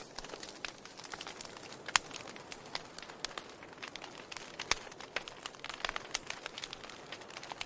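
Wood fire crackling, with irregular snaps and pops from the burning wood over a faint hiss. One sharp pop about two seconds in is the loudest.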